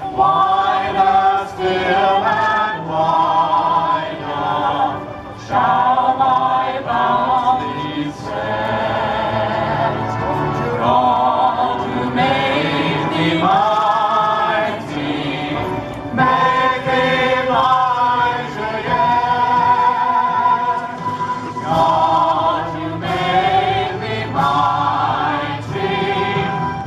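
A group of men and women singing a 1940s wartime song together through microphones and a PA, with long held notes.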